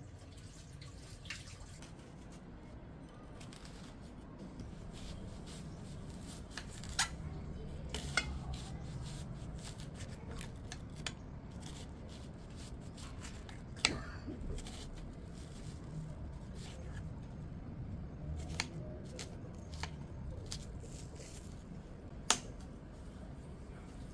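Scattered sharp clicks and light taps over a low steady hum, with the loudest clicks about seven, eight, fourteen and twenty-two seconds in.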